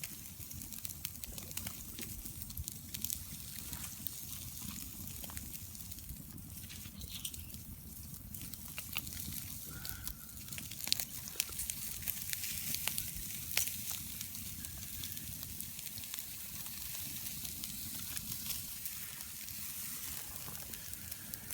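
Bacon and cheese rolls frying in a pan on a camp stove: a steady sizzle with frequent pops and crackles.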